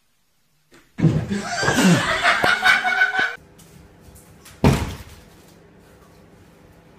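A sudden loud crash and clatter lasting about two seconds, with a voice in it, then one sharp thump about two seconds after it stops.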